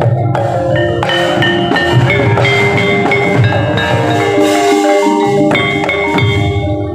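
Javanese gamelan accompanying a wayang kulit fight scene: ringing metallophone notes over pulsing drum strokes, with a few sharp knocks.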